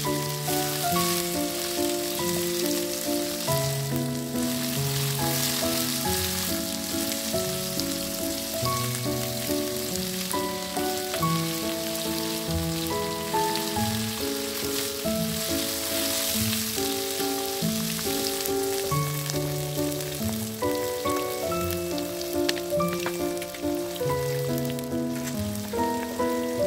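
Vegetables stir-frying in oil in a wok, a steady sizzle, under background music with a melody of held notes.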